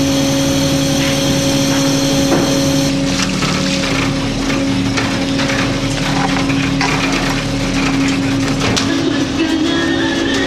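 A fishing boat's line hauler winding in a longline over its sheaves, with a steady mechanical hum of the deck machinery. From about three seconds in come many short clicks and knocks.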